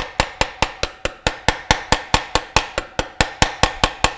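Rapid, even hammer taps, about five a second, on the inner metal ring of a new rubber motor mount, driving it evenly onto the end bell of a Bell & Gossett Series 60 pump motor.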